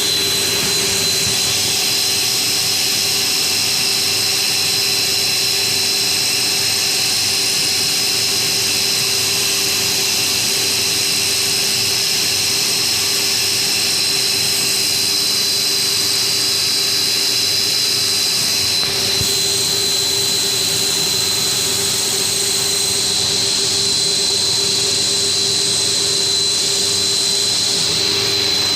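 CNC milling machine running with a steady high-pitched whine and a lower hum over a hiss. The hiss shifts slightly about two-thirds of the way through.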